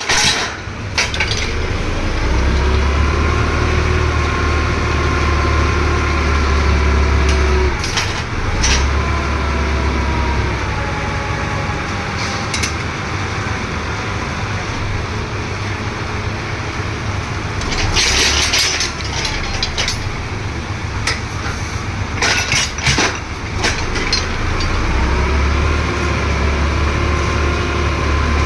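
Engine of a ground-drilling machine running under load, its pitch sagging and recovering as the drill bites, with a deep rumble that comes and goes. Sharp knocks and clanks break in now and then, several of them about two-thirds of the way through.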